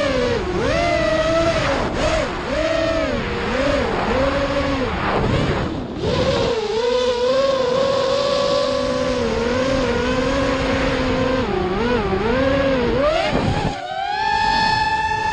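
The brushless motors and propellers of an FPV racing quadcopter (SuperNova 2205 2300KV motors on a 4S battery) whine loudly, their pitch rising and falling with every throttle change as the quad carves low over the ground. Near the end the whine glides up to a higher pitch and holds steady as the throttle is held high.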